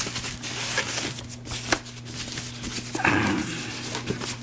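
Packaging being handled while a projector is unpacked: rustling with a few sharp clicks, over a steady low hum. A short voice-like sound comes about three seconds in.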